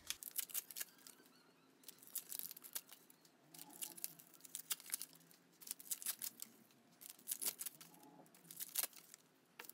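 Paper tea bags being handled and pulled apart: irregular bursts of crinkling, rustling and small tearing sounds.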